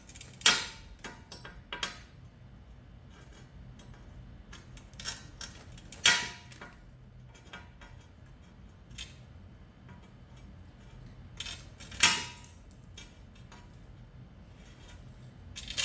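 Tile nippers biting along a scored line on a tile, each bite a sharp crack as a piece of tile snaps off, with a brief ring. Four loud snaps come about six seconds apart, with a few softer clicks and clinks of the tool and chips between them.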